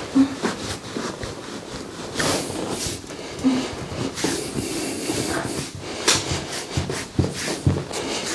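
Hands massaging the back of the legs through stretchy leggings: uneven strokes of fabric rubbing and swishing, with a few soft knocks.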